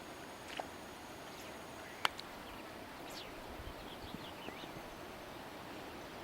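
Faint outdoor ambience: a steady background hiss with a few short bird chirps in the middle and a single sharp click about two seconds in.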